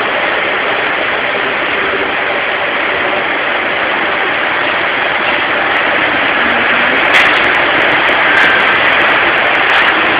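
Automatic car wash gantry running over a car: rotating brushes and machinery make a loud, steady wash of noise, with a few knocks in the last few seconds.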